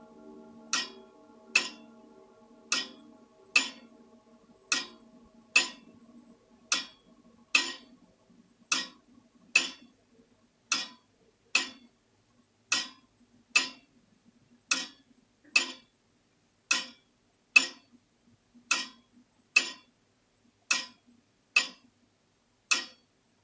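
Grandfather clock ticking in an uneven tick-tock of sharp clicks, about one a second, with every other gap longer. The last of a chime's ringing tones fades out in the first few seconds.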